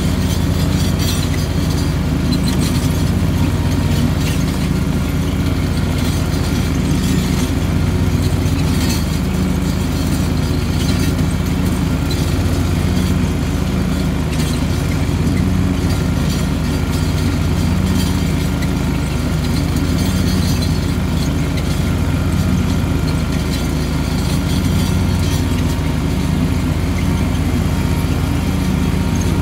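Cub Cadet 2084 super garden tractor's air-cooled engine running steadily under load, driving a 60-inch belt-driven mower deck while mowing grass.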